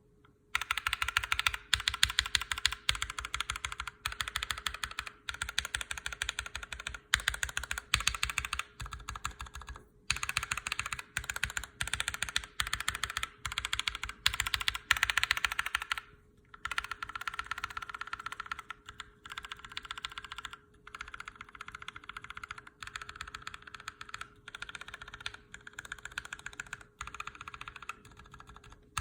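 Fast typing on a custom mechanical keyboard in a Tofu hotswap case, its linear switches (Tealios v2, Gateron Yellows and NK Creams) lubed with Tribosys 3204: a dense run of key strokes that starts about half a second in, with brief pauses about ten and sixteen seconds in.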